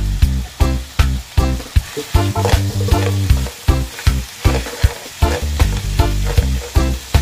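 Chicken pieces sizzling in a nonstick pan as a spatula turns them, under background music with a steady beat and bass line.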